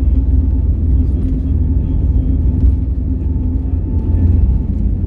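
Airbus A320neo cabin noise heard from a window seat: a steady low rumble with a constant hum through it.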